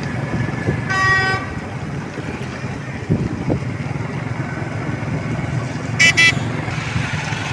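Street traffic running steadily with vehicles passing. A vehicle horn sounds once, briefly, about a second in, and a higher-pitched horn gives two short toots near the end.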